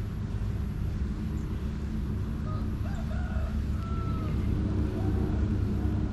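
A steady low engine hum, with a few faint short bird calls about three to five seconds in.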